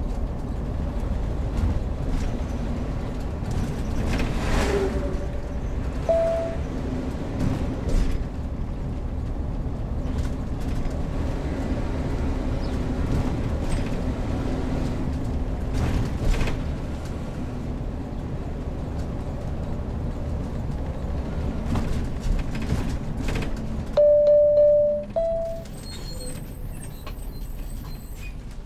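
Heavy camping-car driving, its engine and road noise a steady low rumble. About 24 s in, a loud two-note beep sounds, with a shorter single beep about 6 s in.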